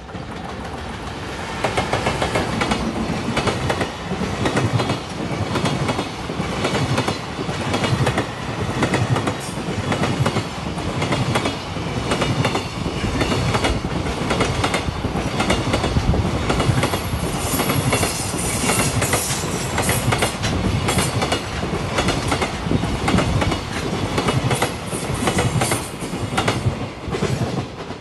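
Freight train hauled by a JR Freight EF210 'Momotaro' electric locomotive, with a long line of container wagons, passing close by, wheels clattering over the rail joints throughout. The sound jumps up about a second and a half in as the locomotive reaches the microphone, stays loud while the wagons roll past, and drops away right at the end.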